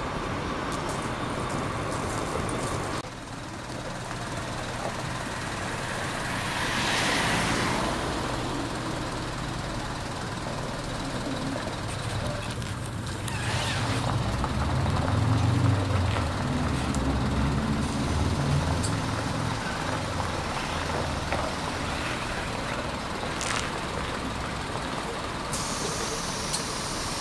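Scania K400 coach's diesel engine running as the bus pulls away and drives past, its low engine note loudest about halfway through. About a quarter of the way in there is a long hiss of air, typical of the coach's air brakes.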